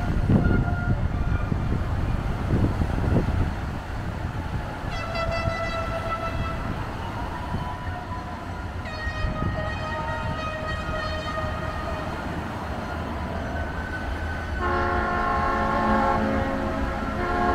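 Wind and surf washing onto the beach, with pitched horn blasts sounding over it: a short one about five seconds in, a longer one from about nine to twelve seconds, and a louder multi-note horn chord starting near the end.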